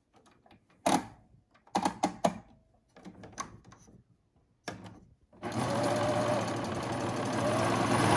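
A few scattered clicks and knocks, then an eight-thread serger starts up about five seconds in and runs steadily, stitching along the edge of a knit fabric piece and getting louder toward the end.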